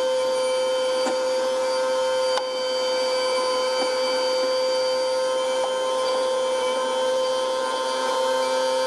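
Telehandler's engine running at steady raised revs with a steady high whine, carrying the load, with a few faint ticks.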